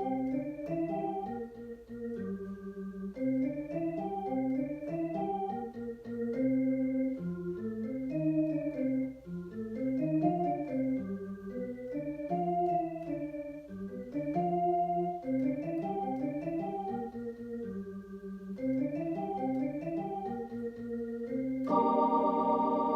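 A student plays a simple keyboard piece in short rising phrases on an electronic keyboard set to an organ-like sound, so the notes hold steady rather than dying away. It ends on a louder held chord near the end.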